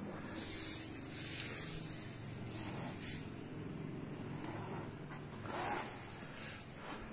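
Paintbrush dragged across a canvas in several short strokes, each a brief scratchy rub, over a low steady background hum.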